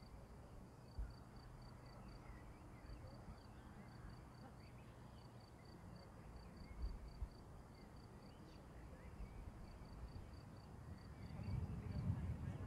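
Faint insect chirping: a high, pulsing note repeated several times a second in runs with short gaps. A low rumble swells near the end and is the loudest sound, with a couple of brief soft low thumps earlier.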